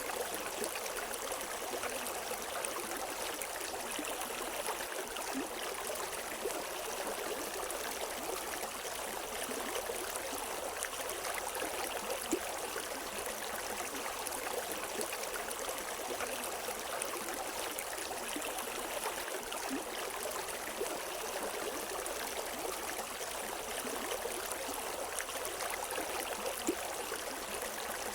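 River water flowing and splashing over rocks: a steady rushing, with small splashes flickering through it.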